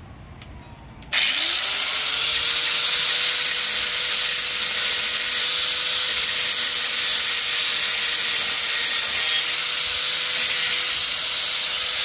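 Corded angle grinder switched on about a second in, its motor spinning up to a steady whine, then grinding the edge of a dull steel lawn mower blade with a loud, even hiss.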